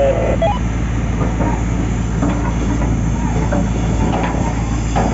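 Steady low diesel rumble of heavy equipment working a shipyard slipway, with a few faint knocks and clanks.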